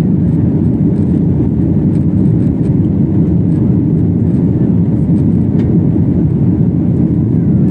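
Jet airliner's engines and airflow heard from inside the passenger cabin as a steady, loud, low roar, with the aircraft in flight shortly after takeoff.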